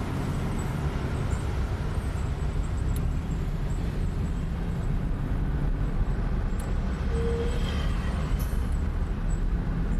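Steady low engine and road rumble inside a moving police patrol car.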